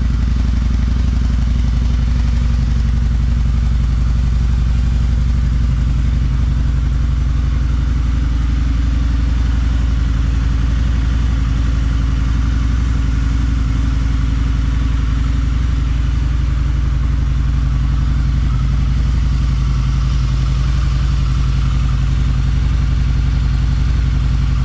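Harley-Davidson V-Rod's liquid-cooled V-twin idling steadily, running after sitting unstarted for a while on a trickle charger.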